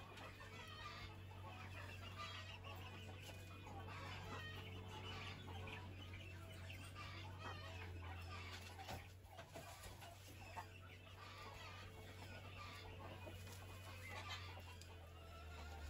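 Dominant Brown D-102 breeder chickens clucking softly, many short scattered calls from the flock, over a low steady hum.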